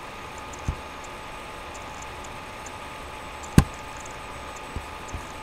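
Computer mouse clicks and small desk bumps over a steady background hum. There is a soft thump under a second in, one sharp click a little past midway, and two more soft thumps near the end.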